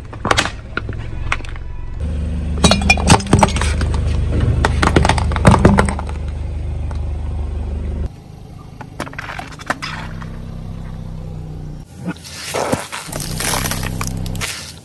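A car tyre rolls slowly over plastic toys and objects, giving a run of sharp cracks and crunches over the car's low engine hum, loudest a few seconds in. Near the end a plastic soda bottle bursts under the tyre with a loud fizzing spray.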